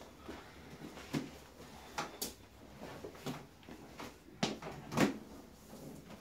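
A handful of short knocks and thumps, the loudest near the end, from a chiropractic adjusting table as the patient is repositioned onto her other side for a side-lying lumbar adjustment.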